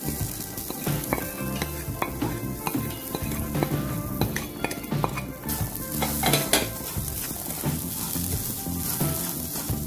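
Wooden spatula stirring and scraping ghee-roasted semolina (rava) in a pan, with a sizzle and occasional knocks against the pan, as grated coconut is tipped in from a plate.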